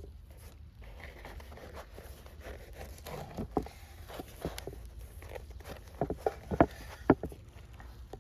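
A run of irregular light knocks and taps, thickest about two-thirds of the way in, over a steady low rumble.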